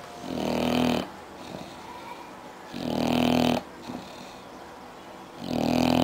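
English bulldog snoring in its sleep: three snores, each under a second long, about two and a half seconds apart, much louder than the breathing between them.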